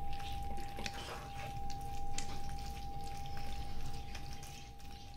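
Wooden spatula stirring okra through a thick curd-and-masala gravy in a nonstick pan: soft wet scraping and squelching with scattered light clicks, over a steady thin tone.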